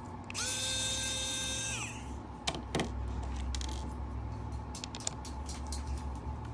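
Small electric screwdriver motor spinning up, running steadily for about a second and a half and winding down, followed by two sharp clicks and lighter tapping of tools on parts.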